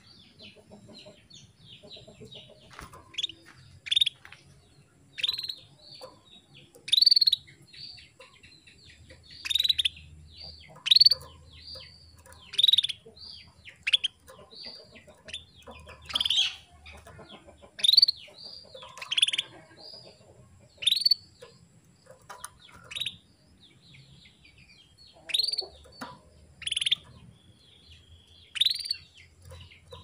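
Female domestic canary calling: short, sharp call notes repeated about every one to two seconds at an uneven pace, with faint twittering between. This is the female's call to males, used as a lure to set male canaries singing.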